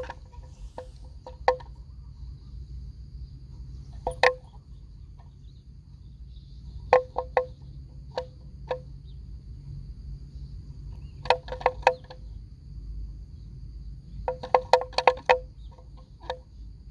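A steady high insect drone over low wind rumble, broken by sharp snaps that come singly or in quick clusters of three to five, about four or five a second.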